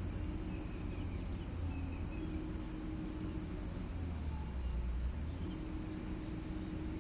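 Hitachi excavator's engine running steadily with a low rumble.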